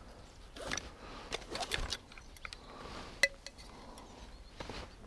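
Irregular clicks, clinks and rustles of fishing tackle being handled, a fixed-spool reel and rod readied for a cast, with one sharp metallic click about three seconds in.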